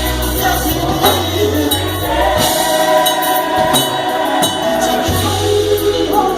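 Gospel choir singing over a band, voices holding and bending long notes above deep held bass notes, with a tambourine jingling.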